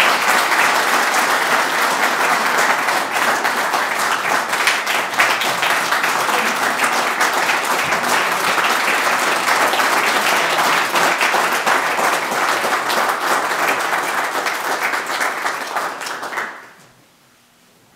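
Audience applauding: dense, steady clapping from many hands that dies away over about a second shortly before the end.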